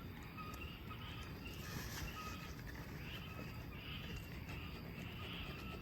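A bird chirping, short notes repeating every half second or so, over steady outdoor background noise.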